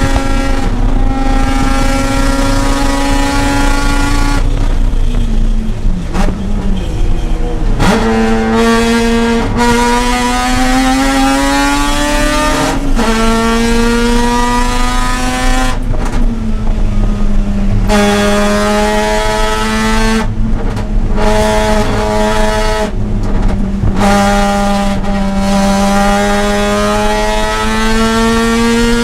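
Mazda RX-8's two-rotor Renesis rotary engine at full throttle on a race track. Its pitch climbs steadily for a few seconds at a time, broken by short drops and gaps several times as it shifts and lifts.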